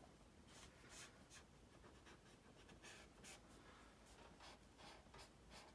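Faint, quick strokes of a marker's felt tip rubbing across sketchbook paper while shading, about two uneven scratches a second.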